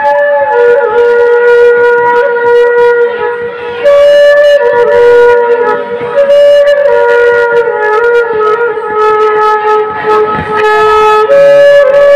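Slow solo flute melody of long held notes that slide from one pitch to the next.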